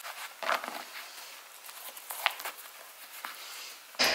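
Soft rustling and a few light ticks of shoelaces being pulled tight and tied on a pair of sneakers. A sudden, much louder noise comes right at the end.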